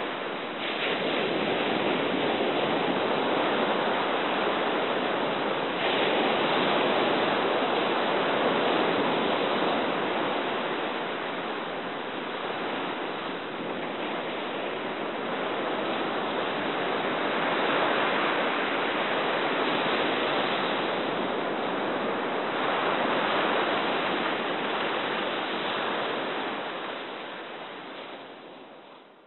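Ocean surf breaking on a beach: a steady rush of waves that swells and eases every few seconds, fading out near the end.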